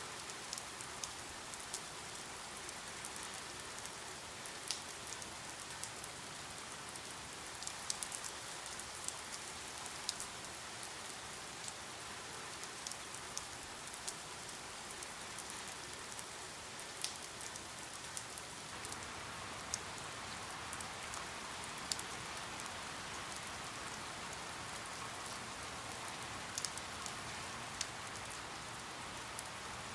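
Steady rain falling, a constant hiss with single drops ticking sharply on a surface here and there; the hiss grows a little fuller about two-thirds of the way in.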